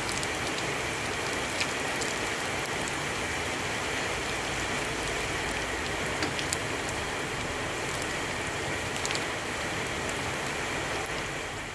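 Potato perkedel frying in hot oil in a pan, turned onto their second side: a steady sizzling hiss with scattered small pops and crackles, fading out near the end.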